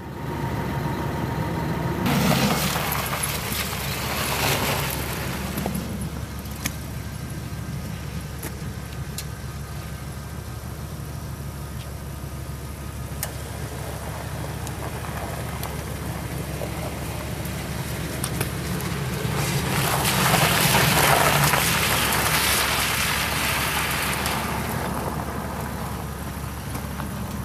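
A 2002 Ford F-150 pickup's 4.2-litre V6 gas engine running steadily. Its sound swells twice, briefly a couple of seconds in and for longer about two-thirds of the way through.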